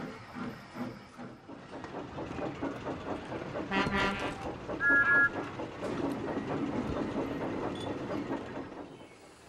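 Steam locomotive running, wheels clattering over the rails. Two short whistle sounds come about four and five seconds in, the second a high toot. The sound fades away near the end.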